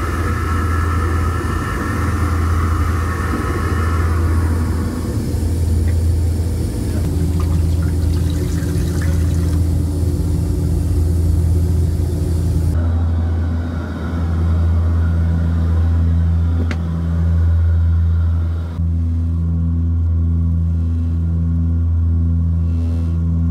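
Steady low drone of the Antonov An-24's twin turboprop engines heard inside the cabin. At the start a toilet flush runs for about five seconds, and later a tap runs into the sink for about six seconds.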